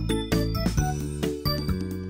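Background music with a light, bouncy beat and bright tinkling notes.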